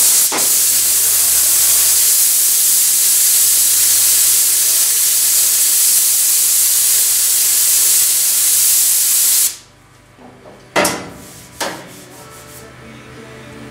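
Compressed-air blow nozzle held against a steel body panel, hissing steadily to cool a freshly heat-shrunk spot, then cutting off suddenly after about nine seconds. Two short, sharp bursts follow near the end.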